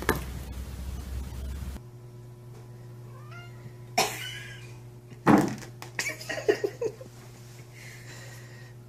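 A cat meowing several times, faint at first, then loud calls at about four seconds in and a run of them between about five and seven seconds in.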